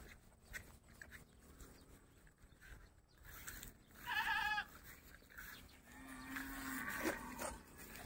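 A goat bleats: a short wavering call about four seconds in, followed about two seconds later by a longer, lower-pitched call, over faint rustling.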